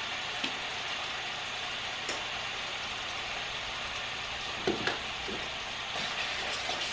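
Butter and garlic sizzling steadily in a hot pan, with a few light knocks, the loudest just before five seconds in.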